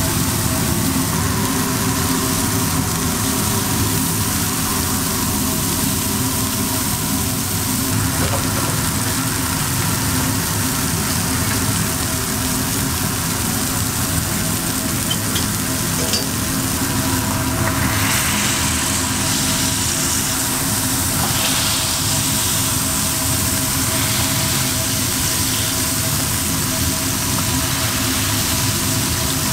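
Burger patties sizzling on a hot flat-top griddle, over a steady low hum. The sizzle grows louder about eighteen seconds in.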